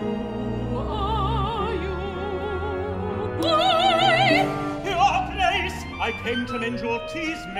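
Operatic singing over a small orchestra: a mezzo-soprano sings slow held notes with wide vibrato, rising to a higher, louder phrase midway, and near the end a tenor answers in shorter phrases.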